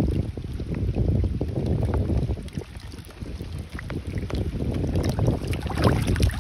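Water splashing and sloshing alongside the boat as a muskellunge is held at the surface and swims off on release, in uneven irregular splashes, with wind rumbling on the microphone.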